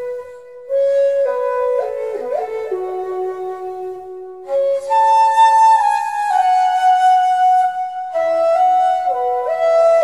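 Background music: a slow flute melody of long held notes that slide from one pitch to the next, softer near the start and rising to a higher, louder phrase about halfway through.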